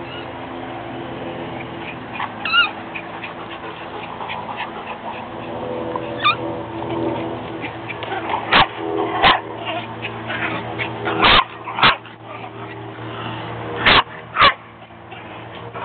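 Chihuahuas playing with a squeaky dog toy: short, sharp squeaks and small-dog yips, about eight loud ones, most of them in the second half, over a steady low hum.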